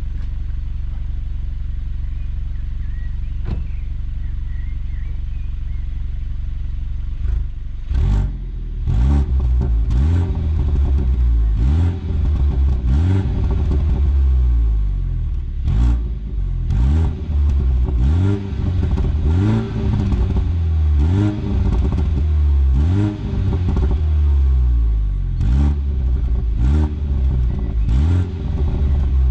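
A BMW 125i's engine with its original, stock exhaust, idling steadily while the car stands, then revved in quick blips, about a dozen of them, each rising and falling back. Short sharp cracks come between some of the blips.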